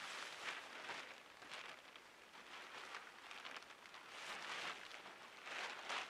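Plastic tarp rustling and crinkling as it is unfolded and spread out on the ground, in a string of irregular swishes.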